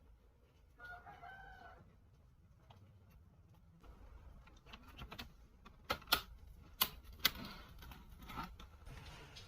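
A short pitched call about a second in, then four sharp clicks a few seconds later, typical of small hard parts being handled during laptop disassembly.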